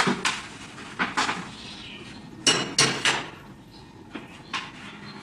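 Dishes clinking and knocking at a kitchen sink as plates are washed and handled. There is a series of sharp clinks, the loudest three in quick succession about halfway through.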